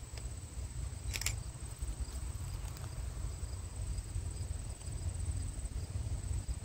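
Wind buffeting the microphone as an uneven low rumble, over a steady high-pitched insect drone, with one short click about a second in.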